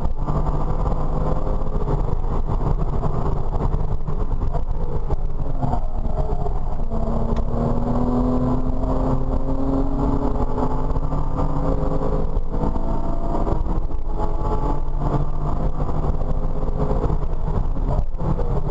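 Porsche Cayman R's 3.4-litre flat-six engine at speed on track, heard from inside the cabin, its revs rising and falling through corners and straights, with a few brief dips in the note.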